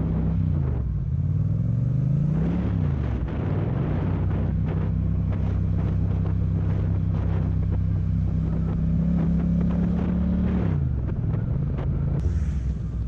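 Yamaha MT-07 motorcycle's parallel-twin engine running on the move: its note drops about half a second in, climbs back within a couple of seconds, holds steady, then falls again near the end.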